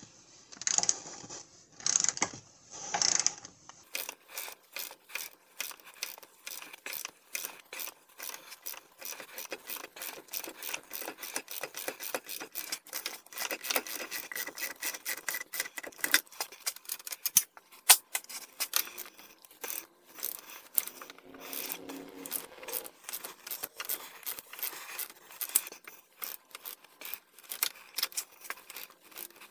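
Hand ratchet clicking in quick runs as the front wheel bearing hub's mounting bolts, which are stuck hard with thread-locker, are turned out. It opens with a few louder separate bursts of sound.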